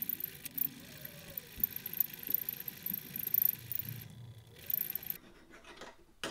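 Flat hand file rasping back and forth across the end of an aluminium RC servo arm and its steel guide washers, filing a radius; the rasping breaks off briefly near four seconds and stops about five seconds in.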